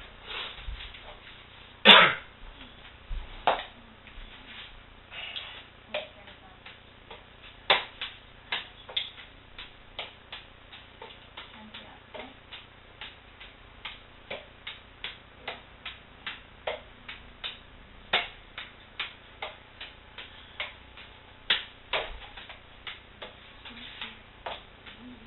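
Juggling balls slapping into the hands as they are caught: a steady run of short soft smacks, about two a second, with one louder knock about two seconds in.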